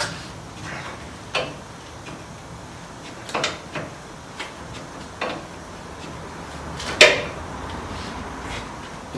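Tools and metal parts being handled on a workbench: a string of separate clanks and knocks a second or so apart, the loudest about seven seconds in.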